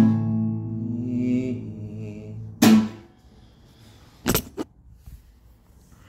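Final chord of a song on acoustic guitar ringing out and fading. About two and a half seconds in, one sharp strike on the strings, after which they fall silent. A couple of sharp knocks follow about four seconds in.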